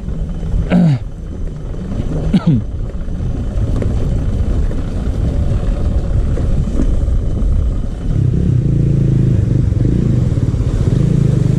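Motorbike engine running under way on a rough off-road track, with rumble and road noise. Two brief sharp sounds come about one and two and a half seconds in. The engine settles into a steadier drone from about eight seconds in.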